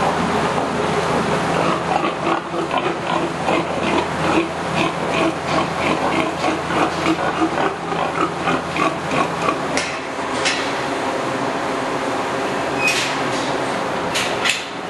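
Sows in a barn grunting in short repeated bursts, a couple a second, over a steady background hum. In the later part there are a few sharp metallic clanks from the steel stall bars.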